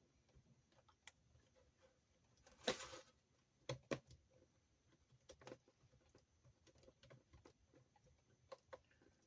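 Quiet workbench handling: scattered small clicks and taps of a hand tool and small screws on the parts of an RC car's tail-wing mount, with a short louder scrape about three seconds in.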